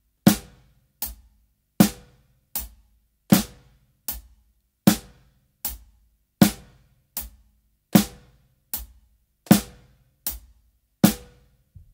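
Hand claps together with a snare drum struck on the backbeat (beats 2 and 4), a steady, even stroke about every three-quarters of a second, every other stroke louder with a short ring.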